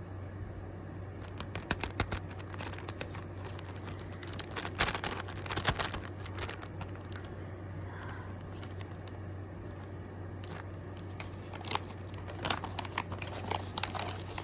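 Plastic packaging crinkling and tearing as an item is unwrapped by hand, in irregular rustles and snaps, loudest about five seconds in. A steady low hum runs underneath.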